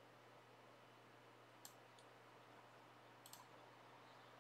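Faint computer mouse clicks: one click, a lighter one just after, then a quick double click, over a steady low hum and hiss.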